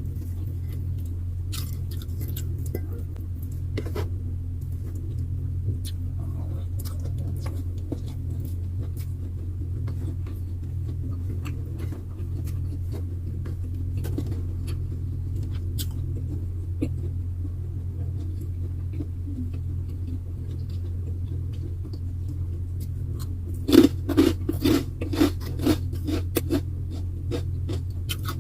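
Faint scattered clicks and light handling sounds over a steady low hum. About four seconds before the end comes a run of louder crunchy chewing and biting close to the microphone, about two crunches a second.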